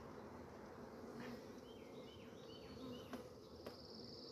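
Honeybees buzzing around an opened hive, a faint steady hum, with a few short high chirps in the middle and a small click about three seconds in.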